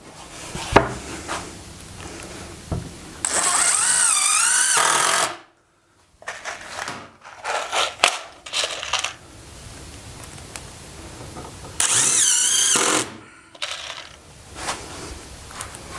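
Cordless drill run in two short bursts, about two seconds long a few seconds in and about one second long near the end, its motor whine wavering in pitch with the trigger. Knocks and clatter of handling tools and parts between the bursts.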